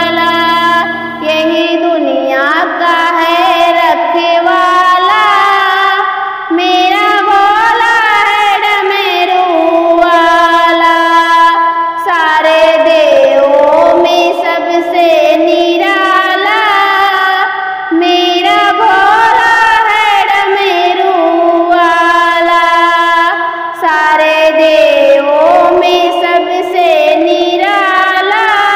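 A woman singing a Hindi Shiv bhajan (a devotional song to Shiva) in a high voice over music, the melody gliding and ornamented, without a pause.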